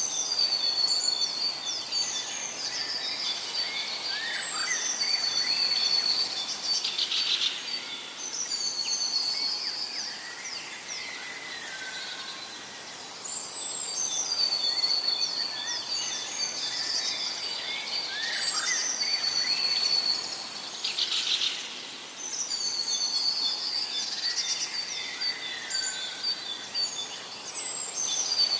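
Several birds chirping and trilling in a busy chorus over a steady background hiss. The same run of calls repeats about every 13 seconds, as in a looped nature recording.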